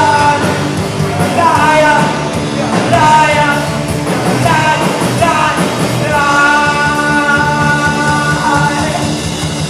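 Punk rock song played by a band with a singer: sung phrases over steady loud backing, then a long held note for a couple of seconds.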